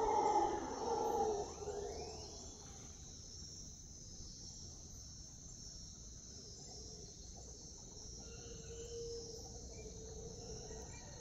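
Mantled howler monkeys roaring, a loud rough call that fades out about a second and a half in. A steady chorus of night insects goes on under it, and fainter roars come back later.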